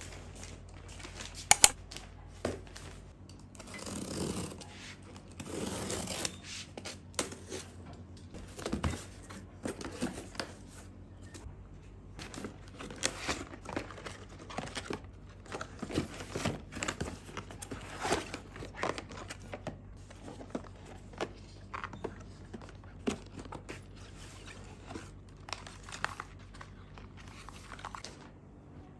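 Plastic parcel packaging crinkling and tearing as a package is unboxed, in irregular short rustles and clicks, with one sharp click about a second and a half in.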